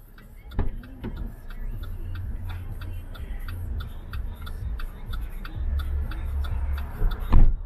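A parked car's rapid, steady ticking, about four a second, over low rumbling and bumping while a rear door stands open and a pizza delivery bag is dragged off the back seat. A sharp thump near the end, the rear door shutting, is the loudest sound.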